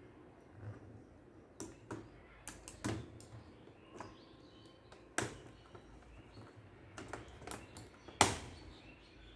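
Irregular clicks and knocks of small hard objects being handled, a dozen or so spread unevenly, with the loudest knock a little after eight seconds in.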